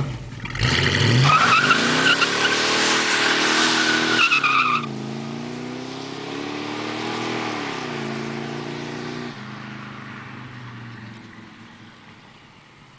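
1969 Plymouth Barracuda's V8 launching hard with the rear tyres squealing for about three and a half seconds. The engine pitch climbs, drops at each gear change, and the sound fades away as the car pulls off into the distance.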